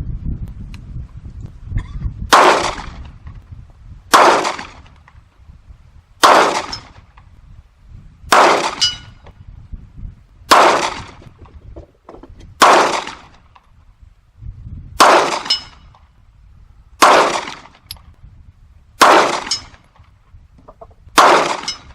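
FN FNX-9 9mm pistol firing ten slow, aimed shots, one about every two seconds.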